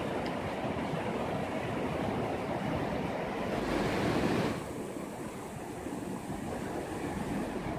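Shallow mountain river rushing over a rocky bed, a steady wash of water. The sound swells briefly a little past halfway, then drops off suddenly and carries on quieter and duller.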